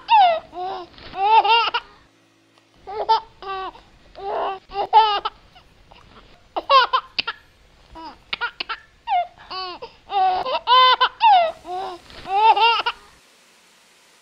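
A baby giggling and babbling in short runs of high-pitched laughter with brief pauses, stopping about a second before the end, after which only a faint hiss remains.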